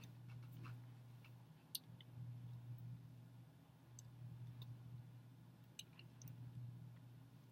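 Near silence: a steady low hum of room tone with faint scattered clicks from hands and fingers moving while signing.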